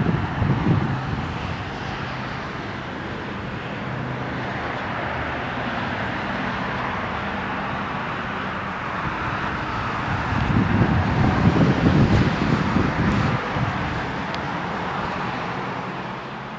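Wind buffeting the microphone outdoors, with rumbling gusts at the start and again about ten to thirteen seconds in, over a steady outdoor hiss.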